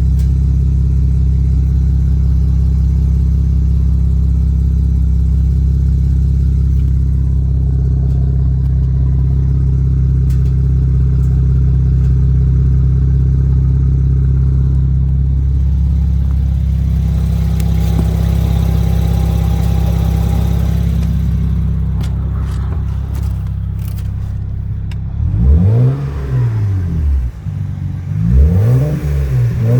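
BMW 335i's turbocharged inline-six idling steadily, then blipped several times in quick succession near the end, the pitch rising and falling with each rev. The owner is listening for a strange noise that he thinks comes from the turbos or the exhaust.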